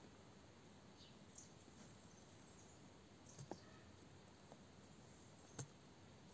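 Near silence with a few faint clicks from a laptop's keys or touchpad, the clearest about halfway through and near the end.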